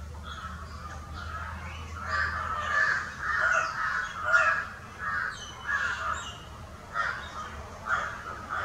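A crow cawing over and over, about two calls a second, starting about two seconds in.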